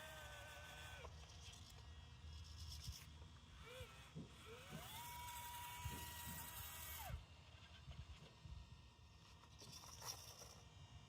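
Small servo motors of a 3D-printed RC excavator whining as they drive the arm. The pitch slides up and down in short moves, then rises and holds for about two seconds before cutting off.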